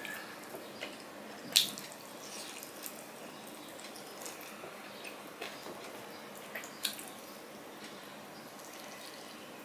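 Fingers mixing rice and curry on a steel plate: soft wet squelching with a few sharp clicks against the metal, the loudest about one and a half seconds in and another near seven seconds.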